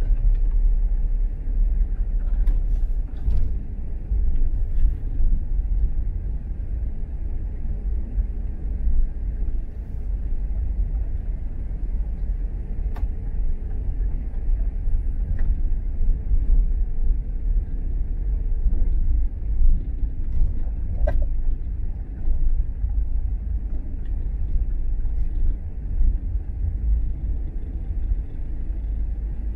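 Car driving, a steady low rumble of engine and road noise, with a few faint clicks here and there.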